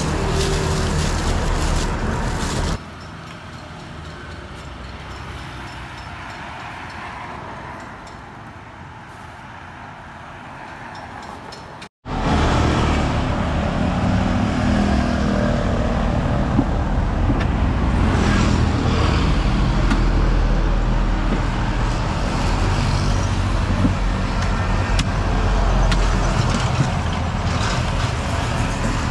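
Roadside traffic noise: a steady low rumble of passing vehicles, quieter for a stretch early on and loud again after an abrupt cut, with a few short sharp knocks in the later part.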